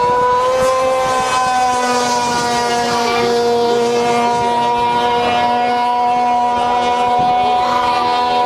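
Sikk 27cc gas RC mono-hull boat's Zenoah two-stroke engine running flat out at a steady high pitch as the boat speeds across the water. The pitch lifts slightly about half a second in.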